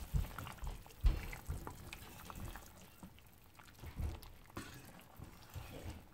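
Wooden spoon stirring chitterlings in broth in a cooking pot: liquid sloshing, with soft, irregular knocks against the pan.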